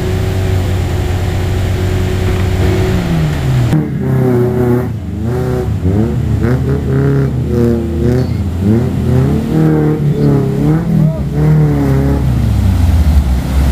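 Off-road vehicle engine running steadily, easing off about three seconds in, then revving up and down over and over as it works through mud.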